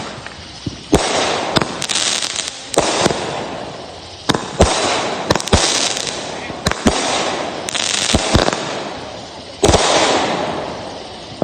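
Consumer aerial fireworks going off: about a dozen sharp bangs at uneven intervals, each followed by a fading hiss.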